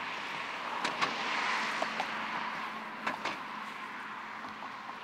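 Road traffic passing, a rush of car and tyre noise that swells in the first couple of seconds and slowly fades, with a few light clicks over it.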